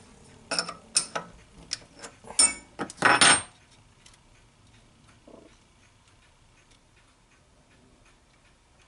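Small metal parts and tools handled on a mini lathe: about seven sharp metallic clicks and clanks in quick succession, the last a longer scrape-clank, then only faint ticks.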